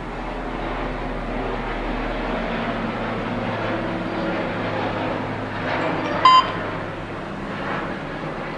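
A home security alarm control panel gives one short, sharp electronic beep about six seconds in, like a keypad key press, over a steady background rumble and hum.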